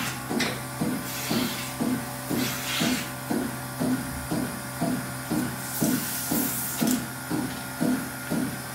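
Milking machine pulsation running: a steady rhythm of short hissing clicks, about two a second, over the steady hum of the vacuum system. A burst of hissing air comes about six seconds in.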